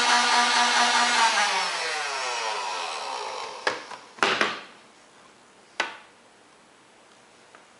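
Motorized foam-dart blaster's electric motor running with a steady whine, then winding down, its pitch falling as it fades over a few seconds. Three sharp clicks follow, the middle one the loudest.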